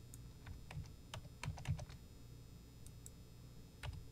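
Faint scattered clicks of a computer mouse and keyboard, about nine in all, with a quick run of them around a second and a half in and a single click near the end, over a low steady hum.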